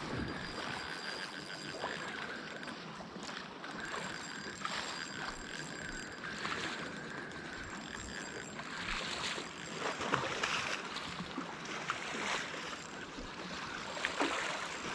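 Sea water lapping and splashing against the shore in small, irregular surges.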